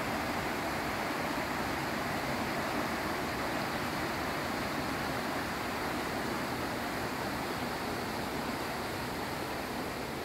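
Steady rush of a mountain stream flowing over rocks, an even hiss of water.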